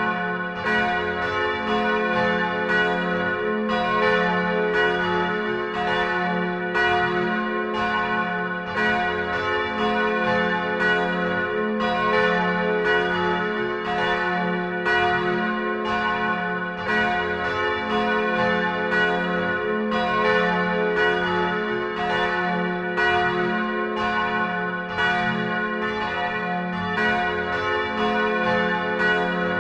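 Church bells ringing in a full peal, several bells striking one after another about every half second, their tones ringing on and overlapping between strokes.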